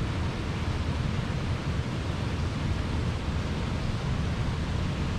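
Steady rushing background noise with a low rumble underneath, even throughout with no distinct events: the ambient noise of the large glass tropical conservatory dome.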